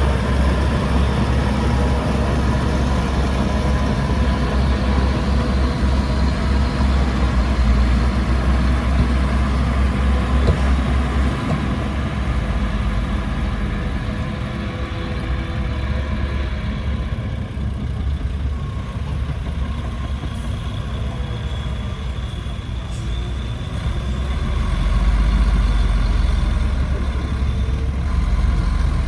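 Heavy diesel engine of earthmoving equipment running steadily with a deep rumble, easing off a little in the middle and picking up again near the end.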